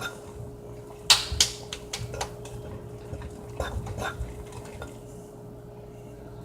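Spoon stirring a glue-and-laundry-detergent slime mixture in a bowl, clinking and knocking against the bowl in irregular strokes, the loudest a little over a second in. The stirring thins out over the last couple of seconds.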